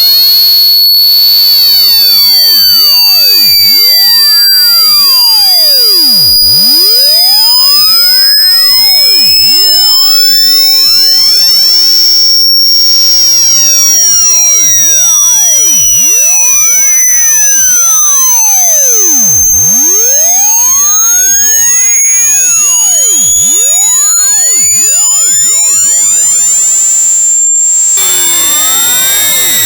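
Hearing-test sine tone: a single pure, high-pitched electronic tone held continuously and gliding slowly upward in pitch. It changes slightly about two seconds before the end.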